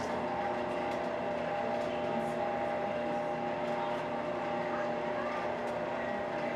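Burnout kiln's lift running steadily while lowering its floor, which carries glowing ceramic shell molds: an even machine drone with a hum of several tones.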